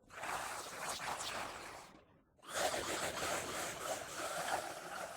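Raspy, breathy alien-zombie voice effect: two long hissing, rasping utterances with no clear words, the second starting after a brief pause about two seconds in.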